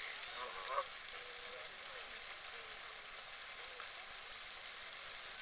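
Canada geese calling: a short cluster of honking calls about half a second in, then a few fainter, scattered calls over a steady hiss.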